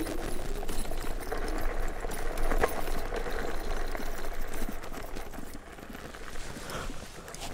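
Electric off-road vehicle ridden over a rough dirt trail: a dense, rapid rattle of the frame and suspension over bumps, with one sharp knock about two and a half seconds in. It gets quieter toward the end.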